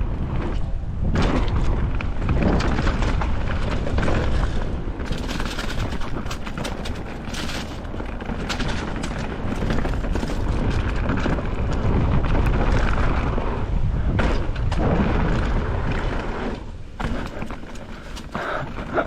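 Wind buffeting a helmet or body-mounted camera's microphone while a mountain bike clatters and thumps over rough downhill trail, with a steady rushing noise and many sharp knocks.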